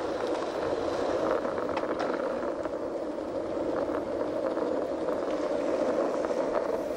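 Skateboard wheels rolling over asphalt: a steady rumble with a few faint clicks.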